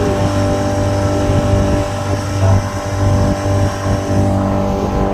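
Speedboat engine running steadily under way, a constant multi-toned drone over a rushing noise.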